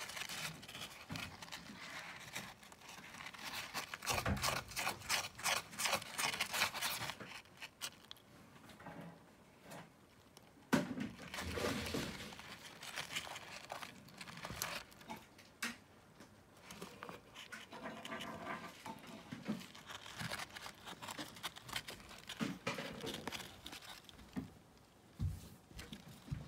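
Pet hedgehogs scrabbling and digging in a tray of pellet litter: irregular bursts of rustling and scratching with small clicks.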